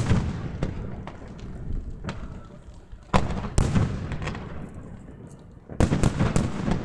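Fireworks shells bursting overhead: a loud bang at the start, two more a little past halfway, then a quick run of about four bangs near the end, each followed by a rumbling echo.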